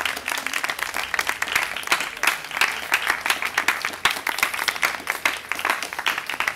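Audience applauding, many hands clapping in a dense, irregular patter.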